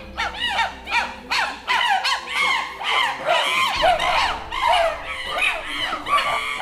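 Chimpanzees calling: a loud, continuous run of rising-and-falling hoots and screams, several animals overlapping, about two or three calls a second.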